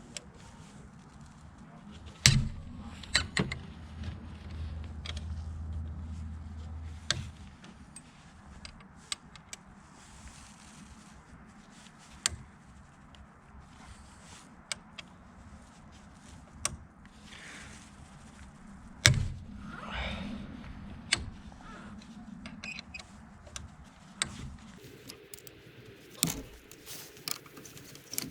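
Metal hand tools being handled on a motorcycle's front end: scattered sharp clicks and knocks, the loudest about two seconds in, near the middle and near the end. A low hum runs for about five seconds from about two seconds in.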